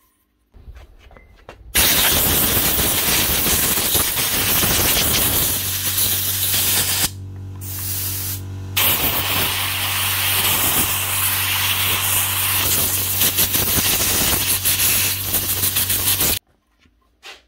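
Compressed-air blow gun hissing into a cordless vacuum's sealed DC motor and impeller unit, blowing out dust and grit that may be jamming the seized impeller. It runs as two long blasts with a short break about seven seconds in, over a steady low hum that stops with the air.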